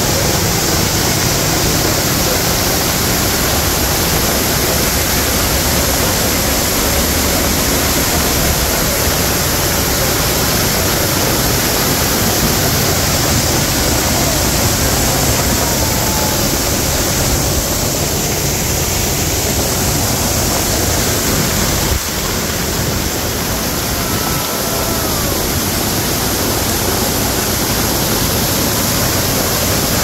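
Cucumber Falls, a woodland waterfall, pouring onto rocks and a plunge pool, heard from right beside the falling water as a loud, steady rush.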